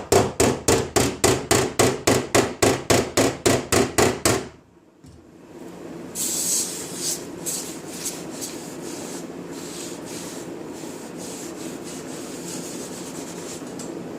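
Rapid, even hammer blows on the thin sheet metal of a Chevy Express van's quarter panel, about four a second for some four seconds, each with a short ring: dent work done without a dolly behind. After a short pause, irregular rubbing strokes work over the panel to the end.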